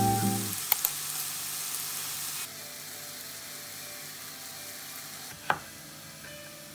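Food sizzling as it fries in a pan, a steady hiss that drops to a lower level about two and a half seconds in. Near the end a chef's knife strikes a wooden cutting board once, cutting carrot.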